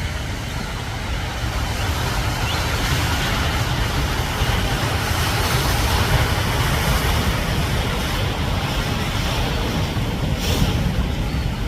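Wind buffeting the microphone with a deep rumble, over steady ocean surf washing against rocks.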